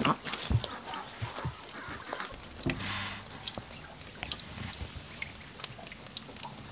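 Rain dripping: scattered light drips and taps, irregular and fairly quiet.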